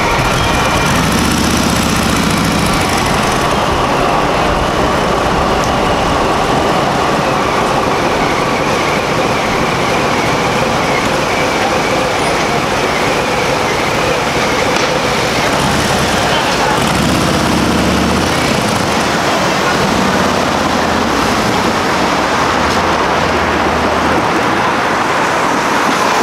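A railroad crossing's electronic bell ringing steadily over road traffic noise, with a light rail train passing through the crossing and vehicles idling and pulling away.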